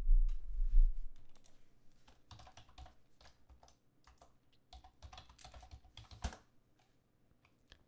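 Typing on a computer keyboard: a word keyed in two short bursts of key clicks, ending with one harder keystroke. A dull low thump at the very start is the loudest sound.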